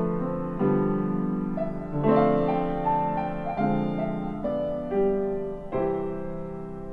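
Slow piano music: notes and chords struck about once a second and left to ring.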